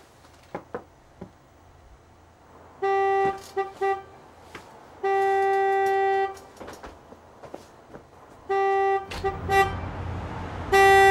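Car horn honking repeatedly on one steady note, a driver at the pump calling for service. A blast and two short toots, then a long blast, then another blast and two toots, with a last long blast starting near the end; the rumble of the idling car rises under the final honks.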